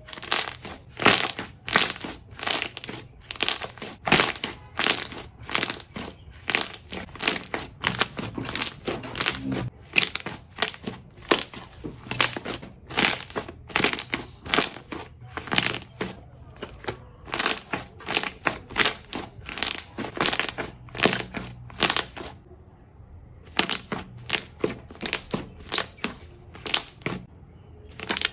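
Slime being pressed and squeezed, making a steady run of short crackling pops, about two a second, with two brief pauses in the later part.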